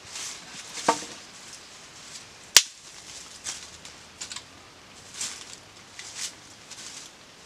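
Small campfire of bamboo and twigs being tended: dry sticks and leaf litter rustling and crackling in short bursts, with one sharp crack about two and a half seconds in.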